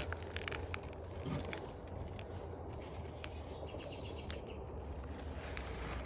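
Outdoor background noise: a steady low rumble with scattered light clicks and rustles.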